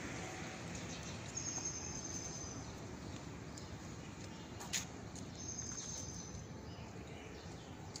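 Outdoor background hiss with two high, thin, steady calls, each about a second long and a few seconds apart, and a faint tap near the middle.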